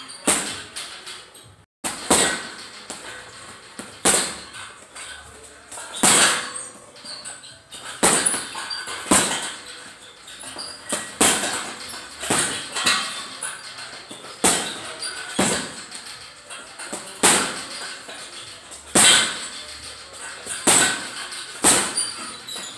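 Boxing gloves punching a teardrop-shaped heavy bag hung on chains: sharp hits, single punches and quick pairs, about one every second or two at an uneven pace.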